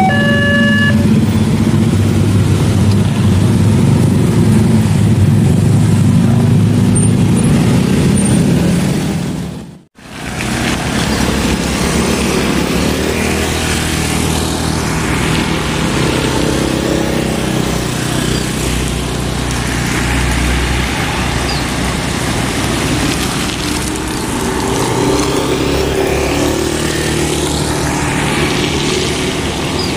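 A railway level-crossing warning alarm, an electronic two-pitch tone, stops about a second in as the gates open. Motorcycle and car engines then run loud and steady as traffic moves over the crossing. After a sudden cut about ten seconds in, quieter road traffic runs steadily, with a few vehicles passing by.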